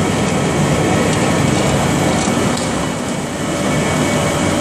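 Rice husk pellet mill and its production line running under load: a loud, steady mechanical din with a low rumble and a few faint ticks.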